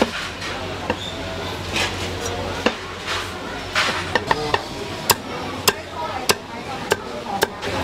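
Cleaver chopping on a wooden block: a run of sharp knocks, a few scattered, then steady about every half second in the second half.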